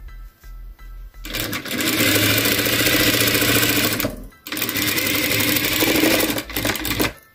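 Industrial sewing machine stitching at speed in two runs of about three seconds each, starting about a second in, with a brief stop about four seconds in as the fabric is repositioned.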